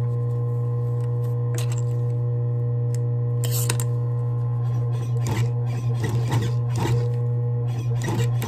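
Industrial sewing machine with its motor humming steadily, and irregular short clacks as slow stitches are run through leather piping, more of them in the second half.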